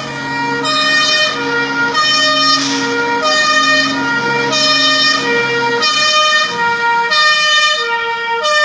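Fire truck's two-tone siren wailing, switching back and forth between two pitches about every two-thirds of a second, over a low rumble that stops about six seconds in.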